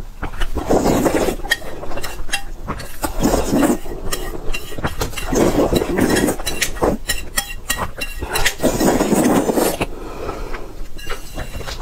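A person slurping saucy spicy fire noodles (火鸡面) in four long, loud pulls, with wet smacking clicks of the lips and chewing between them.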